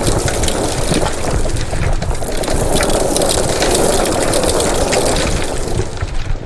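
Water rushing and gurgling with many crackles and a low rumble, easing off near the end.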